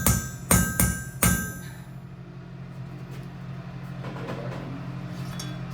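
Blacksmith's hammer striking hot steel on the anvil, four ringing metallic blows in the first second and a half. After that only a steady low hum remains.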